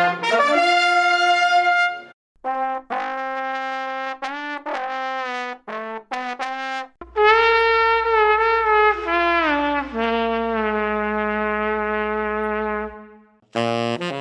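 Trumpet and trombone recordings played one after another as short solo passages: bright held notes, a brief pause, a run of short detached notes, then held notes that slide down in pitch and fade out.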